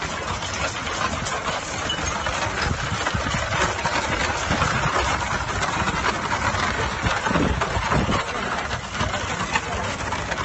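Horse-drawn field gun team passing over gravel: hooves and wooden spoked wheels crunching on the stones, a dense steady crackling.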